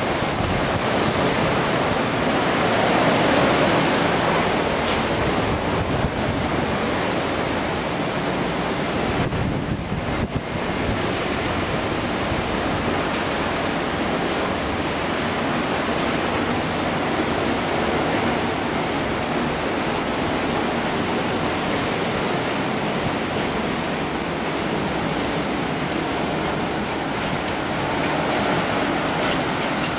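Hurricane wind and heavy rain: a steady, loud rush of noise, with wind striking the microphone. It dips briefly about ten seconds in.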